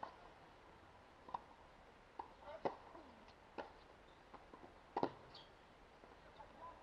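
Tennis ball struck back and forth in a serve and rally: about five sharp racket-on-ball hits at roughly even spacing of a little over a second, the loudest about five seconds in.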